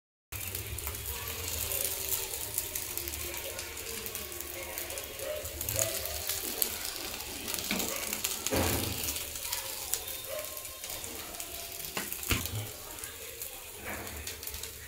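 Wooden spatula stirring and scraping crisp idli pieces around a non-stick frying pan, a run of small scrapes and clicks over a light sizzle, with a few sharper knocks of the spatula against the pan. Near the end the pieces are scooped out of the pan onto a plate.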